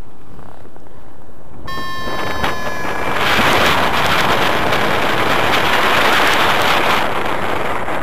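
Wind rushing over the microphone of a paraglider pilot's harness-mounted camera in flight. It turns into a loud, rough buffeting from about three seconds in and eases slightly near the end.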